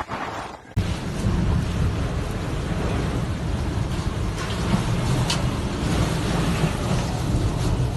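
Storm wind and rain: a steady rushing noise with a heavy low rumble, cutting in abruptly under a second in.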